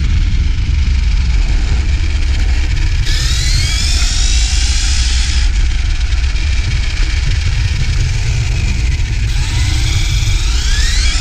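Losi Baja Rey RC truck driving over paving stones, heard from a camera mounted on the truck: a heavy rumble of tyres and wind on the microphone. The electric motor's whine rises as the truck speeds up, about three seconds in and again near the end.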